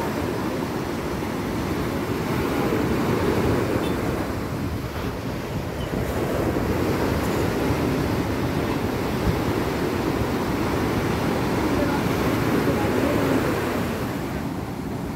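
Sea surf: waves washing and breaking in a continuous rush that swells and eases a little.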